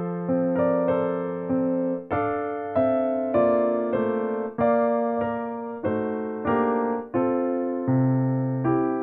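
Background piano music: a slow, even run of notes and chords, a new one struck about every two-thirds of a second and each fading away before the next.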